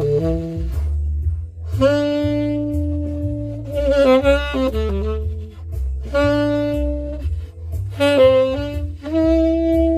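Tenor saxophone improvising jazz-blues phrases, a few long held notes broken by quick runs, over a backing track's bass line.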